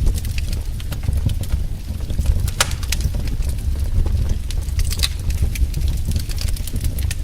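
Wood fire in a fireplace crackling, with irregular sharp pops and snaps, a few louder ones, over a steady low rumble of the flames.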